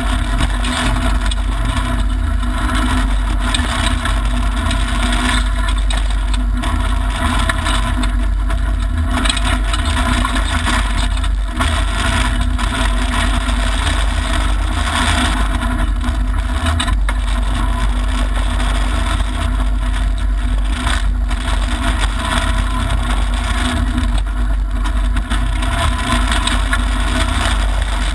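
Mitsubishi Lancer Evolution IX rally car's turbocharged 2.0-litre four-cylinder engine running hard on a gravel stage, heard from inside the cabin, with steady tyre and gravel noise underneath.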